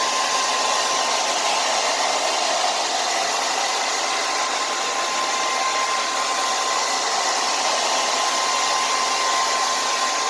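Handheld hair dryer running steadily, a constant rush of air with a faint steady whine, blowing hot air on the back of an iPad to warm it up.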